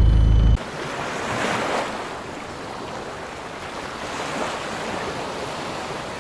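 Water rushing and splashing, with wind noise on the microphone and slow swells in level. Under a second in, a loud low rumble cuts off abruptly.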